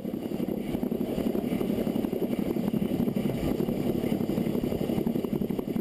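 Steady rumble and rattle of Isle of Man Railway's No. 4 Loch, a 3 ft gauge steam tank locomotive, rolling along the track on minimal power as it drifts downhill.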